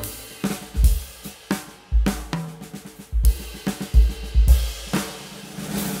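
Background music, mostly a drum kit playing a beat with kick drum, snare and cymbals.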